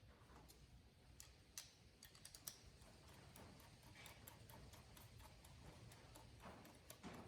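Faint, scattered clicks and light taps from hand tools and intake parts being handled, with a quick cluster of clicks about two seconds in, over a low steady hum.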